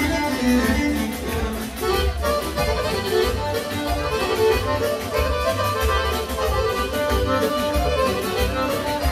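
Live Serbian folk dance music over loudspeakers, with a steady beat under a melody line.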